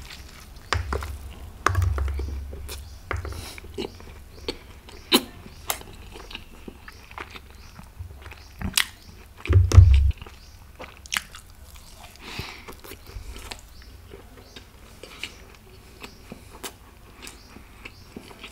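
A person eating close to the microphone: biting and chewing with many short wet mouth clicks and smacks. Dull thumps come about a second and two seconds in, and the loudest about ten seconds in.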